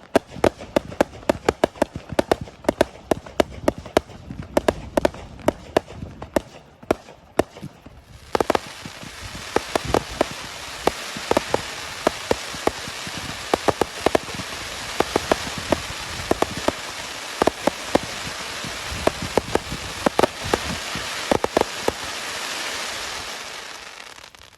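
Fireworks display: a rapid string of sharp bangs for about eight seconds, then a dense, even hiss with scattered bangs that fades away near the end.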